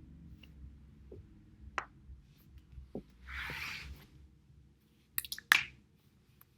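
Back cracking on a foam roller: a few faint clicks, a short hiss in the middle, then a quick cluster of sharp pops about five seconds in, the last pop the loudest, as spinal joints release.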